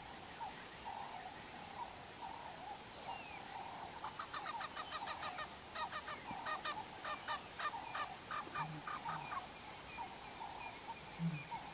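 A quick run of short, honking animal calls, several a second, starting about four seconds in and lasting about five seconds, over a steady high hum of insects or frogs in the background.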